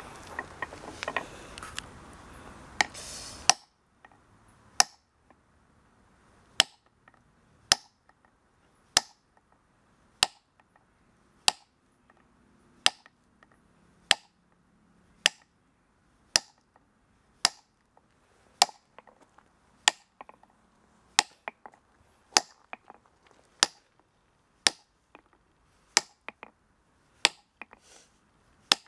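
Hammer striking a steel chisel held against a granite block, sharp metallic strikes about one every second and a quarter, cutting a line to split the stone. A steady background noise stops about three and a half seconds in.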